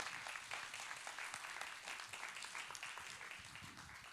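Church congregation applauding: many hands clapping in a dense, even patter that thins a little toward the end.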